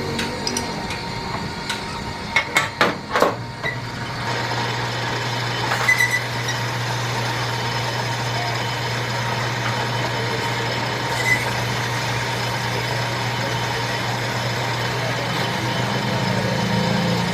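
A few sharp knocks in quick succession, then a steady low machine hum like an idling engine that runs on for most of the time.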